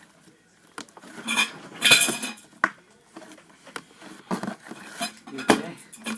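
A utensil clinking and scraping against a bowl in an irregular run of knocks. The loudest clatter is about two seconds in, with another sharp knock about five and a half seconds in.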